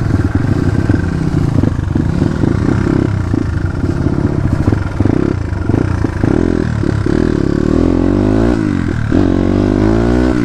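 Crossfire RM250 dirt bike engine running while being ridden. The note is uneven at first, then rises and falls several times with the throttle in the second half.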